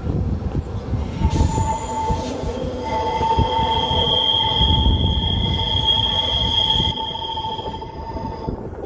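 Metre-gauge Centovalli railway train running on a curve, its wheels squealing in a steady high whine on two pitches from about a second in until near the end, over the low rumble of the running train.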